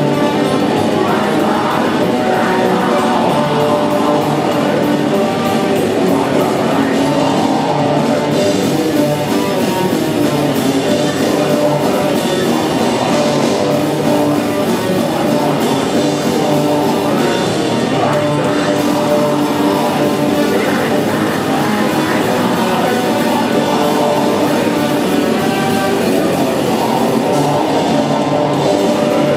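A rock band playing live: electric guitars and a drum kit with singing, loud and unbroken.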